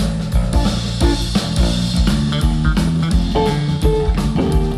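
Live band playing an instrumental passage: electric bass and electric guitar over a steady drum-kit beat.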